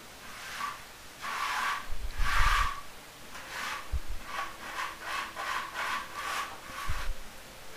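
Wooden hand float rubbed across a fresh cement-mortar screed, a scraping swish with each stroke, levelling and smoothing the surface. Two long strokes come first, then a run of shorter, quicker ones at about two a second.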